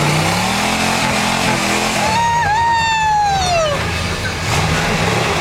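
Chevrolet 4x4 pickup truck engine revving, its pitch climbing in the first second or so. In the middle a high held tone sounds over it for about a second and a half, dipping once and then sliding down before it stops.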